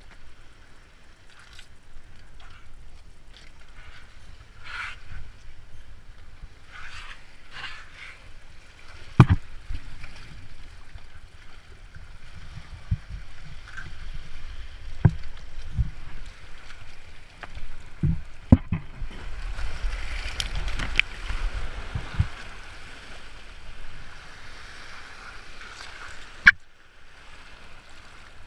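Sea water sloshing and splashing around rocks close to the microphone, with scattered sharp knocks, the loudest about nine seconds in, twice around eighteen seconds and once near the end; the splashing is busiest a little past the middle.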